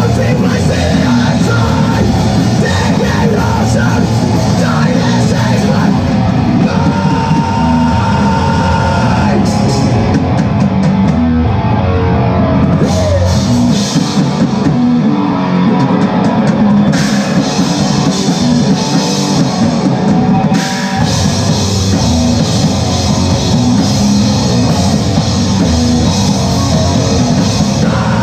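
A heavy rock band playing live and loud, with distorted electric guitar and drum kit. The bass end thins out for several seconds midway.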